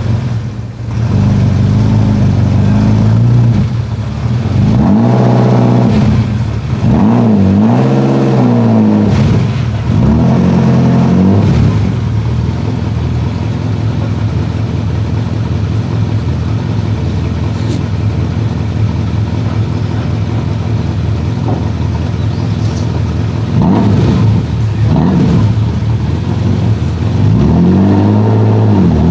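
Ferrari engine idling, with repeated throttle blips whose pitch rises and falls: a run of revs from about five to twelve seconds in and another near the end, steady idle in between.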